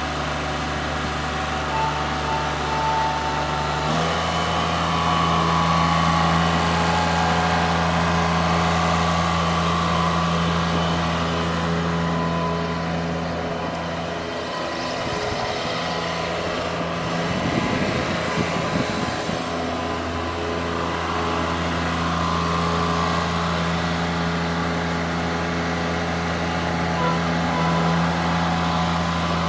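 Engine of an Allmond Bros TLB425ESL backhoe loader running steadily. About four seconds in its pitch steps up slightly. For a few seconds in the middle the steady hum breaks into a rougher, varying sound, then settles again.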